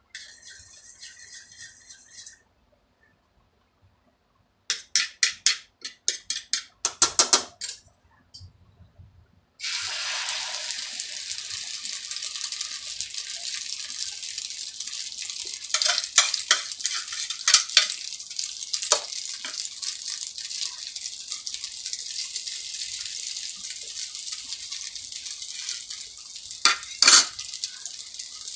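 Beaten egg mixture whisked on a plate with a quick run of clinking utensil strokes, then poured onto a hot tawa griddle, where it starts sizzling suddenly about ten seconds in and keeps up a steady sizzle. A spatula taps and scrapes on the griddle a few times over the sizzle.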